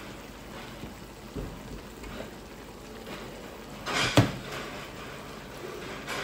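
Stir-fry vegetables in soy sauce sizzling steadily in a steel wok, with a loud knock about four seconds in as a pile of egg noodles goes into the wok.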